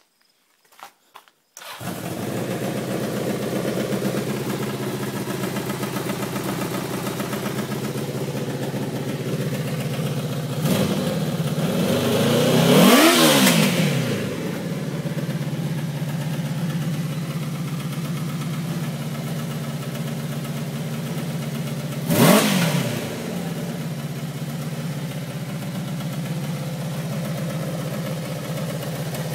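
A 1983 Honda CBX550F air-cooled inline-four motorcycle engine catches after a few clicks about two seconds in and settles into a steady idle. It is revved up and back down between about eleven and fourteen seconds in, and blipped once more briefly a little past twenty-two seconds.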